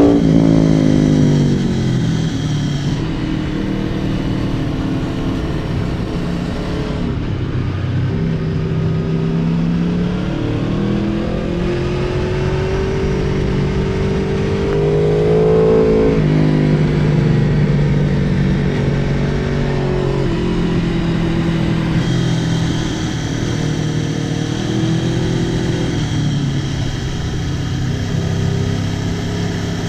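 Aprilia Tuono motorcycle engine at speed on a race track, its pitch rising under acceleration and falling as it comes off the throttle. It drops just after the start, climbs steadily to a peak about halfway through, falls sharply there, then rises and falls less widely toward the end.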